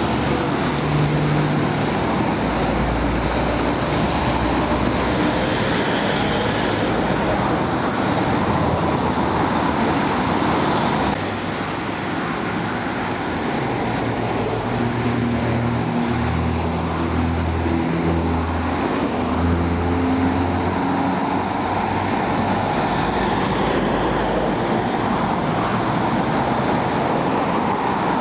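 Busy road traffic: cars and heavy Scania trucks passing, with tyre and road noise. Under it runs the low hum of a diesel truck engine, which changes pitch in steps in the middle stretch.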